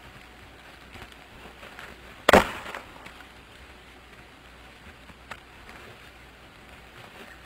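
Two horned goats butting heads: one loud, sharp crack of horn striking horn a little over two seconds in, then a faint knock about three seconds later.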